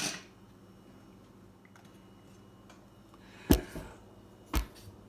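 Two sharp clacks of hard parts being handled or set down, the first about three and a half seconds in and the louder, the second a second later, over quiet room tone.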